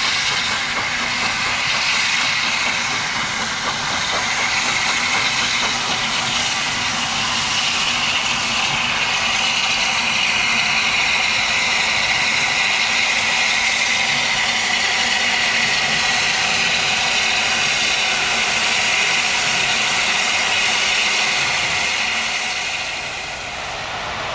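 Steam locomotive hauling coaches slowly towards the listener, with a loud, steady hiss of steam escaping low at the front, from the open cylinder drain cocks. The sound drops a little near the end.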